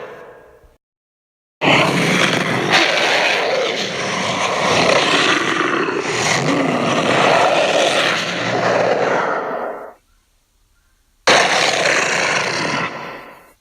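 Tyrannosaurus rex roar sound effects: the tail of one roar fades out, then after a short pause comes one long roar lasting about eight seconds, and after another pause a shorter roar near the end that fades away.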